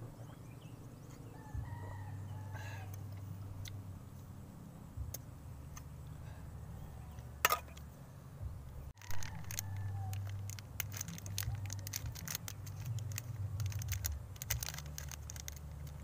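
Faint chicken calls over a low steady rumble, with a sharp click about seven and a half seconds in. In the last few seconds there is rapid crackling and clicking as a small wrapped item is handled.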